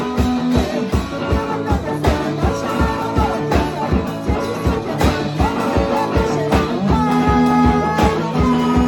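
Instrumental rock music: a band playing with a steady drum beat under guitar.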